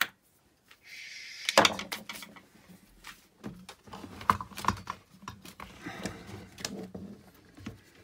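Plastic space-heater housing and parts being handled and shifted about on a table: a brief scrape about a second in, then a run of clicks, knocks and rattles.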